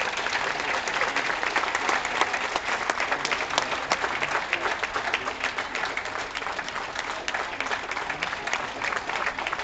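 Audience applauding steadily: many hands clapping at once in a dense, even patter that keeps up throughout.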